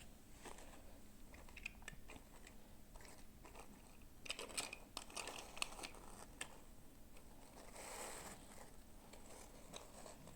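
Small plastic toy pieces and packaging being handled: faint scattered clicks and taps, a quick cluster of them about halfway through, then a brief crinkling rustle.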